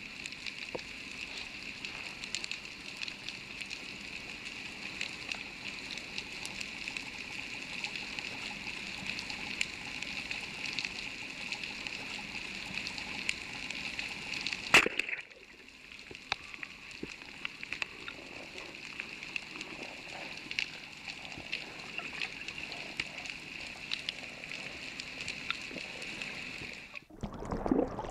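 Underwater ambience heard through a camera housing: a steady hiss full of small crackling clicks, with one sharp click a little under halfway. Near the end the sound drops out briefly, then gives way to louder churning water and bubbles.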